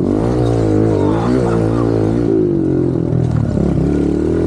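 Kawasaki KLX110 pit bike's small single-cylinder four-stroke engine revving under load on a lap, its pitch rising and falling over and over as the throttle is opened and eased.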